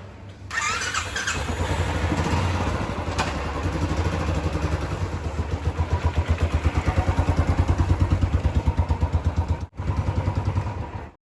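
Royal Enfield Classic 350's single-cylinder engine running, with a steady rapid exhaust thump, freshly serviced. The sound comes in about half a second in and cuts off abruptly near the end.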